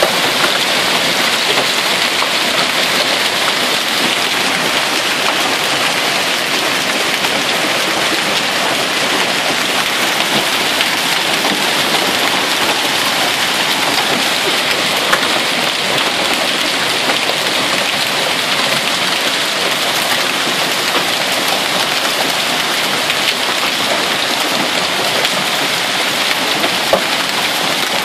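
Hail falling heavily and steadily, a dense hiss and patter of hailstones striking the ground, with an occasional sharper tick standing out.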